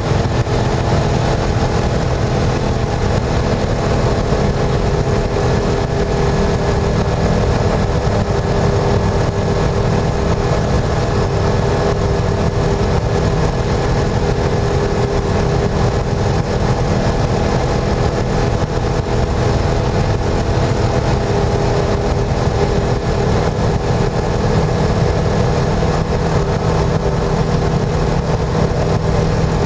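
Rider MD-3 microlight's engine and propeller running steadily in flight, heard from on board with a steady rush of noise under the engine's hum.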